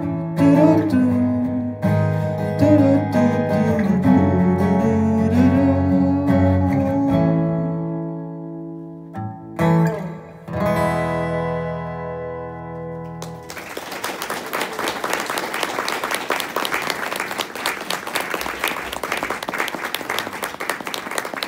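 Acoustic guitar playing the closing chords of a song. The chords are strummed and left to ring and fade, with a final strum about ten seconds in. Then a small audience breaks into applause, which lasts to the end.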